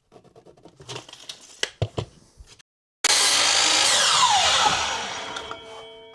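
A few light handling clicks and knocks, then, about three seconds in, a power tool's motor running loudly. It is switched off and winds down, its pitch falling steadily to a fading ring.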